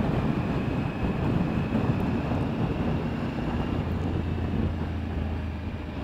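Triumph Tiger 900 GT Pro's three-cylinder engine running steadily at road cruising speed, heard under steady wind and road noise, with its low hum coming through more strongly about four seconds in.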